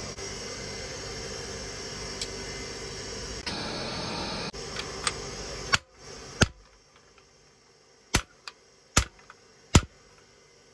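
A steady hiss for the first half, then a hand hammer striking a red-hot keris blade on a steel anvil: a handful of sharp, unevenly spaced blows with lighter taps between, as the wavy blade is forged.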